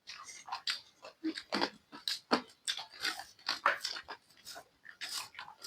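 Close-miked chewing of chatpate, a crunchy Nepali spicy puffed-rice snack: irregular crunches and mouth smacks, about three or four a second.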